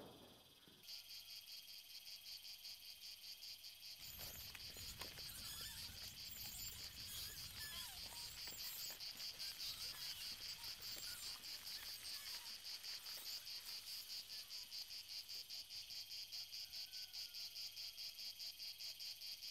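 Faint insect chorus shrilling in a rapid, even pulse, starting about a second in. A low background rumble joins about four seconds in.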